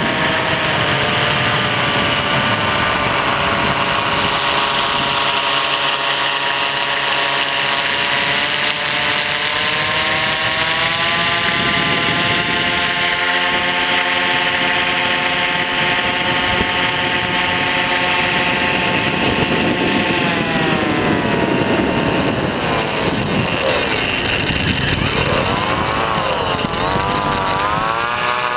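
Propeller motors of a remote-control blimp running steadily. Their whine dips about two-thirds of the way through, then wavers up and down near the end as the throttle changes.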